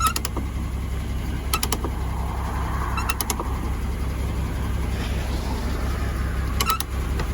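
Truck engine idling steadily, with a few short bursts of rapid sharp clicking about every second and a half in the first half and once more near the end.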